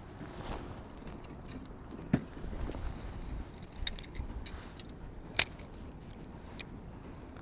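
A few sharp clicks and light knocks from a spinning reel and rod being handled, the loudest click about five seconds in.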